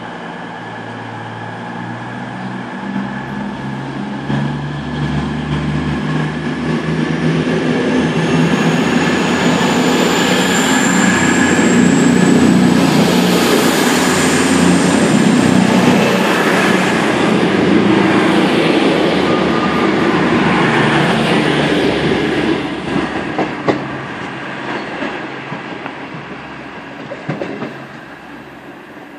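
Class 221 Super Voyager diesel-electric train pulling away from the platform. The sound of its underfloor diesel engines builds as the cars pass close by and is loudest about halfway through, with a thin whine rising in pitch. It then fades as the train draws away, with a few sharp clicks near the end.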